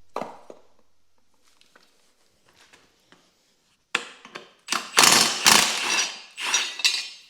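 Impact wrench hammering in several stuttering bursts to break loose the top 17 mm bolt of an engine mount, after a single sharp knock near the start.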